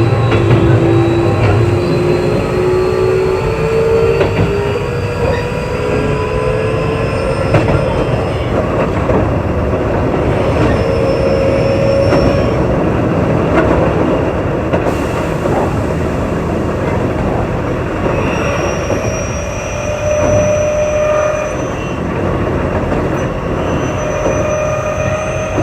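Keio 8000 series electric train running on the line, with continuous wheel and rail noise. Its motor whine rises slowly in pitch over the first dozen seconds as it gathers speed, then holds steadier tones.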